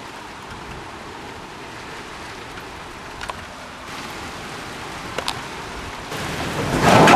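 Steady rain hiss with a couple of faint ticks, swelling much louder about six seconds in.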